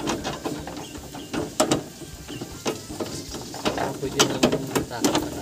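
Long metal rod pushed through a plastic car grille, scraping and clicking irregularly against the grille and the parts behind it.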